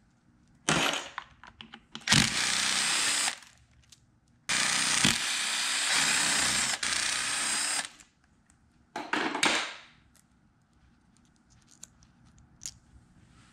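Cordless drill with a socket extension, run in four bursts: two short, one of about a second, and one of about three and a half seconds. It is spinning out the spring bolts of a motorcycle slipper clutch's pressure plate. Faint small metal clicks follow as the loose clutch springs and bolts are handled.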